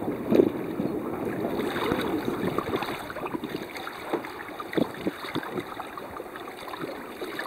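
Water rushing and splashing along a sailboat's hull under sail, with wind buffeting the microphone. An uneven wash with many small splashes and no engine running.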